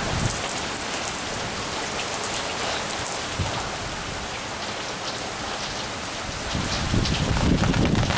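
Heavy rain falling steadily, with individual drops ticking close to the microphone. A low rumble swells in near the end.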